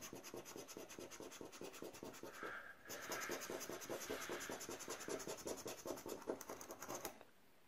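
Scratch-off lottery ticket being scraped with the edge of a flat scraper: fast, even back-and-forth strokes rubbing off the coating, stopping about seven seconds in.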